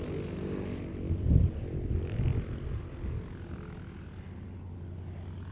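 Rolls-Royce Merlin V12 piston engine of a Hispano Buchón fighter droning steadily as it climbs away, growing slightly fainter. A couple of low thumps stand out about one and two seconds in.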